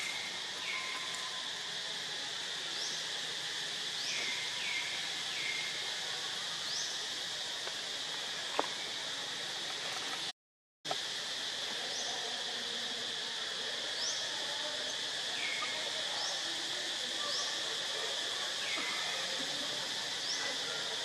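Steady insect drone of a tropical forest, with a repeated chirping call every second or two, each a quick rising note followed by a short falling one. A single sharp click comes shortly before the middle, and the sound cuts out completely for a moment about halfway.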